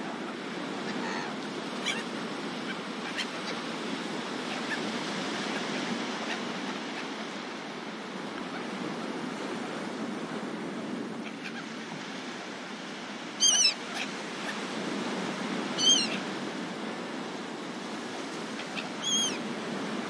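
Gulls calling: three short, sharp calls in the second half, over a steady rushing background of wind and surf.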